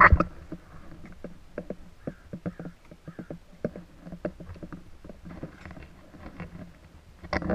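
Irregular clicks and knocks of a camera being handled and repositioned, over a faint low steady hum. A loud knock right at the start and another cluster of knocks near the end.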